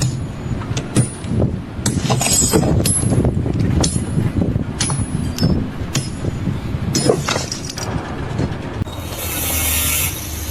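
Steady mechanical rumble with repeated sharp metallic clinks, about two a second, and a loud hiss starting near the end.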